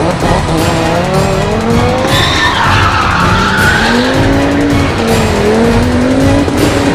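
Car engine revving up and down with tyre squeal from about two seconds in as the car is driven hard and turned. Background music plays underneath.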